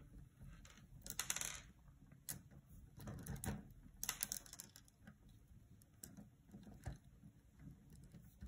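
Plastic pony beads clicking and rattling against each other as fishing line is pulled tight through a beaded kandi cuff; faint, scattered clicks with a short rustle about a second in.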